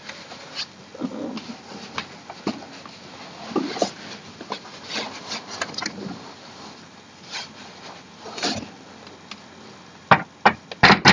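Office chair parts being handled during assembly: scattered light clicks and rubbing, with a few sharper knocks near the end.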